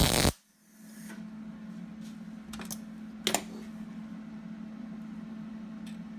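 Welder tack-welding a steel bracket: a loud burst of arc crackle right at the start, fainter clicks about two and a half seconds in and another short burst about three seconds in, over a steady low hum.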